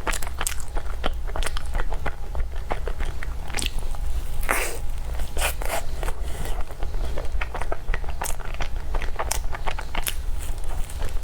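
Close-miked eating sounds: biting and chewing with many quick, irregular crunching and crackling mouth clicks.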